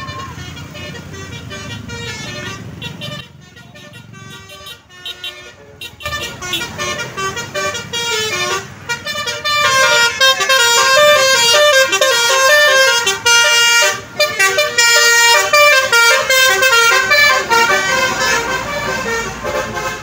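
Bus basuri (multi-tone 'telolet') musical horn playing a quick stepping melody. It starts about six seconds in and is loud from about ten seconds in, over passing traffic.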